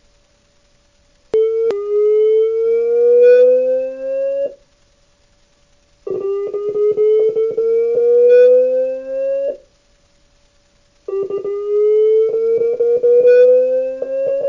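Homemade Bluetooth electronic siren, a small speaker in a cup, sounding a Whelen-style tone. It gives three slow rising tones, each about three seconds long and cut off suddenly, with short gaps between them. Clicks and crackles mark the start of each tone, and a faint steady hum fills the gaps.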